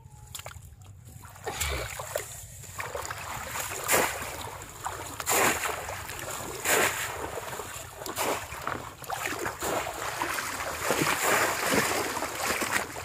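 Shallow paddy-field water splashing hard and repeatedly as a bamboo polo fish trap is plunged down into it, starting about a second and a half in.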